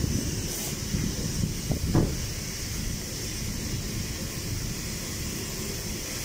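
High-pressure washer spraying a water jet onto a car: a steady hiss over a low rumble, with a brief knock about two seconds in.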